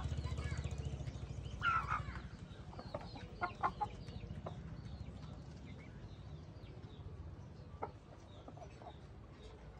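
Chickens clucking, with scattered short calls. The loudest call comes just under two seconds in, over faint high chirping. A low hum fades out within the first two seconds.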